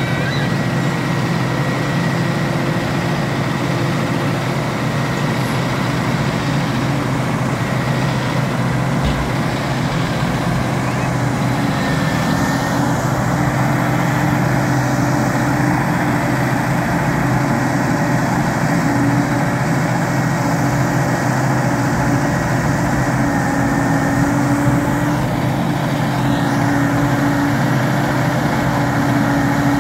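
Engine of a large tracked telehandler running steadily, with a constant low hum and a thin steady whine above it.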